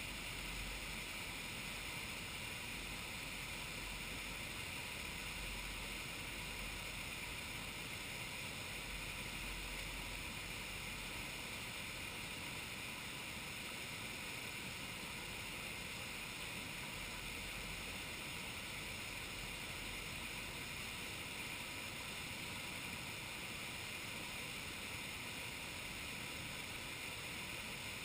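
Steady rush of flowing water, an even hiss-like noise that does not change.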